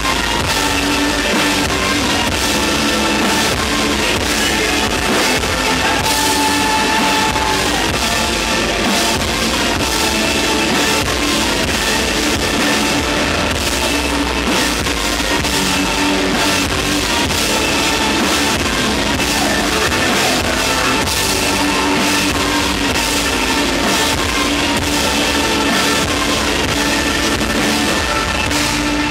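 Rock band playing loud live, with drum kit and guitars.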